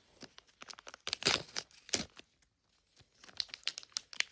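Crinkly packaging on a Mini Brands capsule ball being torn open and crumpled by hand. It comes as two bouts of dense crackling, one around the first two seconds and another near the end.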